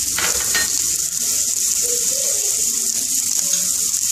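Chopped onion, garlic, green chilli and freshly added diced tomato sizzling steadily in hot vegetable oil in a non-stick kadai.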